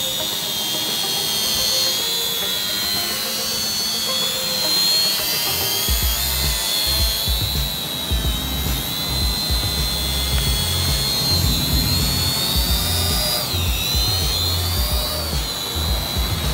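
Syma X220W quadcopter's motors and propellers whining high in flight, the pitch wavering up and down as it manoeuvres. Irregular low rumbles join in from about six seconds in.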